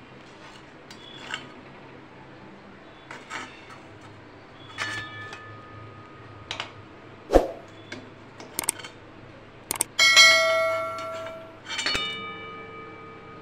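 Metal spatula knocking and clinking against a steel plate and a wok: several separate strikes, some leaving the metal ringing, with the loudest strike about ten seconds in ringing on for over a second.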